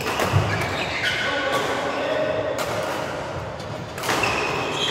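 Badminton rally on an indoor court: a sharp racket strike on the shuttlecock about a third of a second in, then footwork with short shoe squeaks on the court floor.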